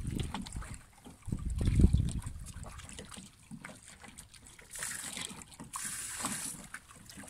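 Small waves lapping and trickling among shoreline rocks, with two short hissing washes a little past the middle. A low rumble, the loudest sound, comes about two seconds in.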